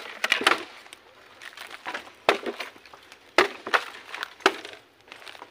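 Dry cut bamboo cracking and snapping: irregular sharp cracks, several close together near the start and single ones spread through the rest.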